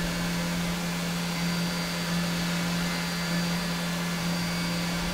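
Tormach 1100MX CNC mill's spindle turning a 1/4-inch chamfer mill at 10,000 RPM while it chamfers the edges of a metal part: a steady low hum under a constant hiss.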